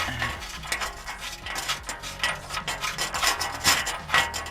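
Hand tool rasping back and forth in short, irregular strokes, about two a second.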